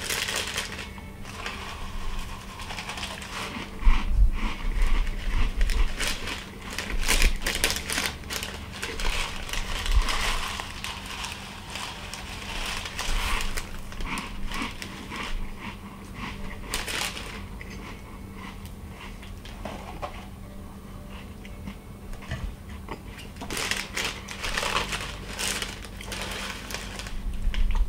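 The plastic inner bag of a single-serve Rice Krispies box crinkling in irregular bursts as it is torn open and handled, with dry cereal poured from it and crunched.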